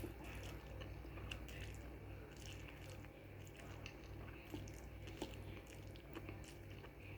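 A person eating instant pancit canton noodles close to the microphone: faint, wet chewing with many small mouth clicks scattered throughout. A low steady hum sits underneath.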